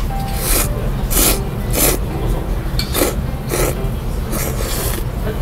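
A person slurping thin, curly Chinese-style ramen noodles, about six short, sharp slurps.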